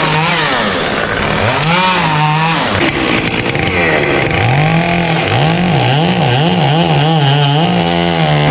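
Chainsaw engine revving up and down, its pitch rising and dropping again and again, in quicker swings during the second half.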